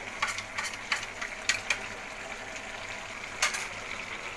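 Chickpea curry simmering in a pan, a steady low bubbling hiss with a few scattered sharp clicks and taps, the loudest about three and a half seconds in.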